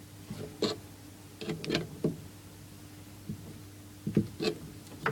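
Scattered light metallic clicks and knocks, in a few short clusters, of a spanner working the brass compression nut while the olive is tightened onto a copper fuel pipe at an isolator valve.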